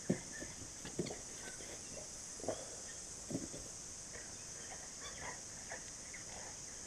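Countryside ambience: a steady high-pitched insect drone with faint bird chirps, broken by four dull knocks in the first three and a half seconds.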